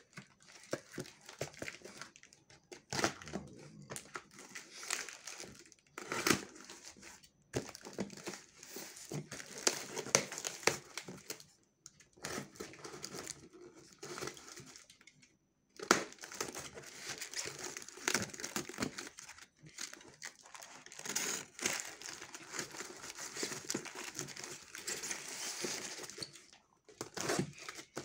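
Cardboard box wrapped in packing tape and plastic film being cut and torn open with a box cutter: irregular crinkling of the tape and film, with cardboard tearing and crackling in bursts and short pauses between.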